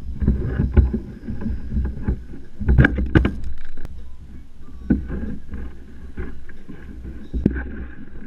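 Knocks and thumps on a plastic sit-on-top kayak's deck and hull as a gar is handled on it, over a low rumble. A dense cluster of sharp knocks comes about three seconds in, with single knocks scattered elsewhere.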